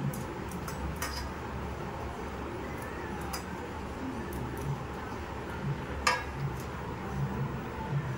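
A few light metallic clinks of a stainless-steel plate and bowl as lime wedges are handled, the loudest about six seconds in, over a steady low hum.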